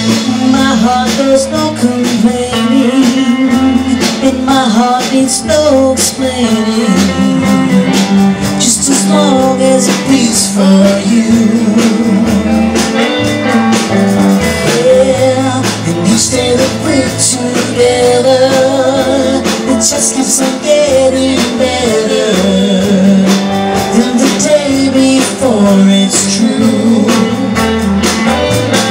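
Live band playing: two electric guitars over a drum kit, loud and continuous.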